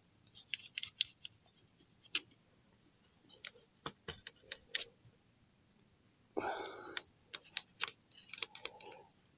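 Scattered light metallic clicks and clinks of small tools and parts being handled, with a short noisy burst about six and a half seconds in.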